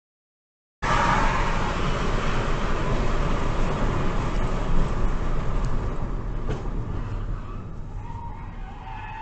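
Car driving, heard from inside the cabin: a steady rumble of road and engine noise with tyre hiss. It sets in about a second in and slowly fades as the car slows down.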